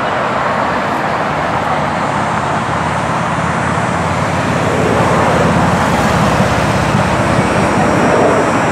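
Lockheed Martin F-35 Lightning II fighter's single turbofan engine, loud steady jet noise as the aircraft flies overhead, growing a little louder in the second half.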